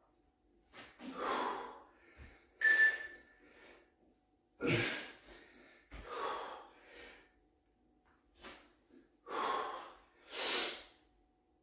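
A man breathing hard from exertion during press-ups: about eight short, forceful breaths, one every second or so, with quiet gaps between them.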